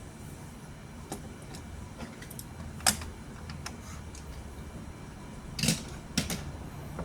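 Scattered clicks and knocks of a Hot Wheels die-cast toy car on a plastic toy track, the loudest about three seconds in and a short rattle just before six seconds.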